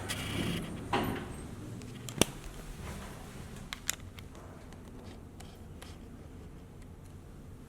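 Old elevator: several sharp clicks and knocks in the first few seconds, the loudest about two seconds in, then a low steady hum from the machinery.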